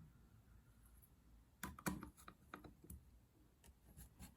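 Faint light clicks and ticks of a screwdriver working the radio-plate screws on an RC car chassis: a small cluster just under two seconds in, then scattered single ticks.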